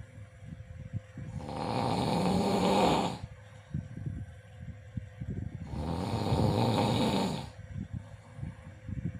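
Snoring: two long, loud snoring breaths about four and a half seconds apart, the first about a second and a half in. Between them come quieter, irregular fluttering rattles.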